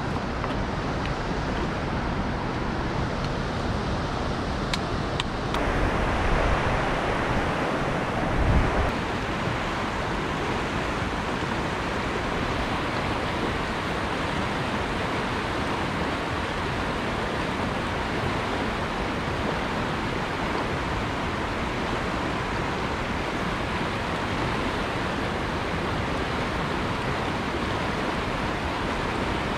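Fast mountain stream rushing steadily over rocks in whitewater riffles. A couple of low thuds come about six and eight and a half seconds in.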